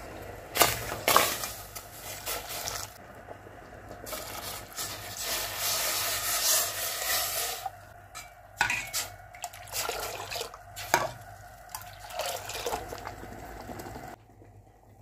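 A steel ladle clinking against a steel pot as boiling Kashmiri chai tea is scooped up and poured back to aerate it, with splashing and bubbling liquid. The sharpest clinks come about half a second and a second in, a run of pouring and splashing fills the middle, and a few more knocks follow.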